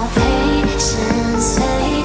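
Background music: a song with a steady pulse of changing notes about every half second.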